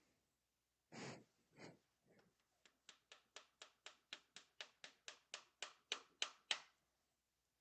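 Light, quick taps of a claw hammer driving a small tack nail through fabric into a wooden canvas stretcher, about four a second for some four seconds and growing slowly louder.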